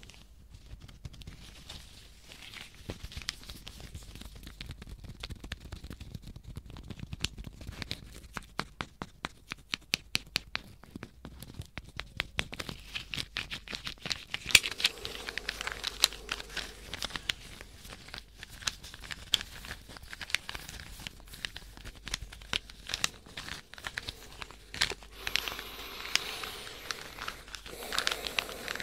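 Wooden snake puzzle being twisted by hand close to the microphones, its blocks clicking and rattling against each other. Between about eight and twelve seconds in, the clicks come in a quick run.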